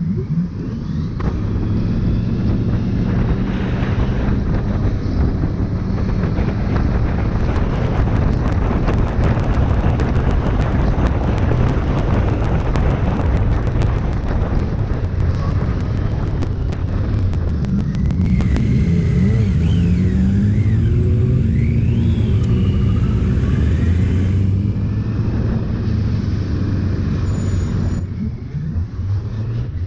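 Suzuki GSF1200 Bandit's inline-four engine running as the motorcycle rides through slow traffic, its pitch rising and falling with the throttle about two-thirds of the way in. A run of sharp clicks sits over it in the middle part.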